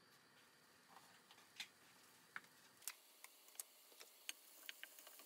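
Faint, scattered ticks and pops from a frying pan heating on high with grapeseed oil and chopped green onions: the oil beginning to pop. The ticks come more often toward the end.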